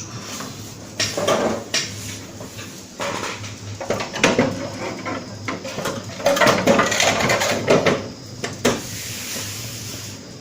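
Bursts of clicking and clattering as hard parts are handled inside a server: memory modules being pulled and reseated in the HP ProLiant ML350 Gen9 in a different slot order, after the system halted because the RAM was not fitted correctly. There is a single sharper knock near the end.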